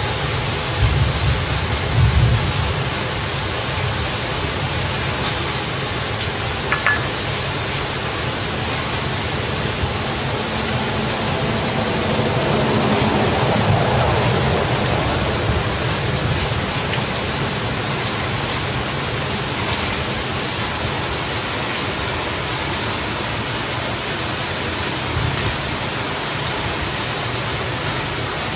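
Heavy rain falling, an even, steady hiss, with a few low thumps a second or two in.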